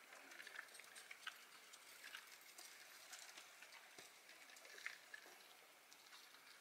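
Near silence, with faint, irregular ticks and scuffs of footsteps on a trail.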